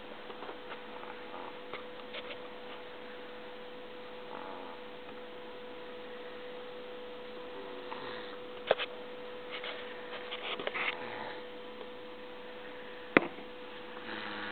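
A sleeping pet snoring, in noisy breaths that come every few seconds over a steady electrical hum. Two sharp clicks, about nine and thirteen seconds in, are the loudest sounds.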